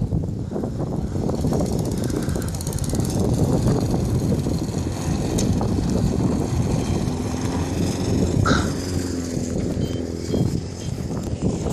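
Strong, gusty wind blowing across the camera microphone: a loud low rumble that swells and dips with the gusts.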